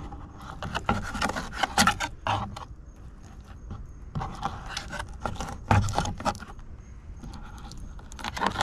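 Fillet knife scraping and cutting against a plastic cutting board as the skin is worked off an oyster toadfish fillet: irregular short scrapes and clicks in two spells, with quieter pauses between.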